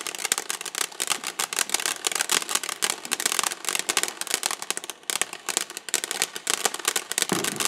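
Ground fountain firework spraying sparks with a dense, rapid crackle.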